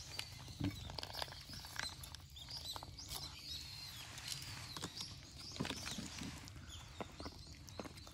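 Cats eating dry food: an irregular patter of small crunching clicks, with faint bird chirps in the background.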